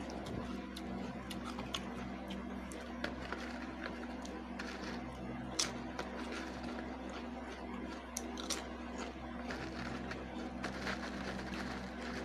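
Close-up chewing of crisp potato chips: scattered sharp crunches, a few louder ones midway, with light clicks of a clear plastic tub as chips are picked out. A steady low hum runs underneath.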